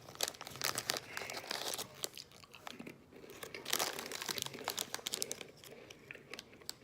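A plastic snack packet crinkling and tearing, with crunchy cracker biscuits (Mini Cheddars) being bitten and chewed. The sound comes in irregular bursts of crackling.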